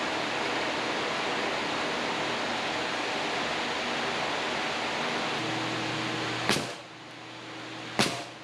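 A steady machine noise with no clear pitch stops about six and a half seconds in. Near the end comes one sharp bang from a pneumatic nail gun driving a nail.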